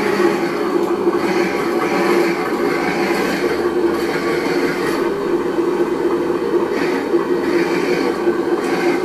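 Simulated engine sound from an RC car's sound module, played through its small speaker. It runs steadily without deep bass, swelling slightly about once a second.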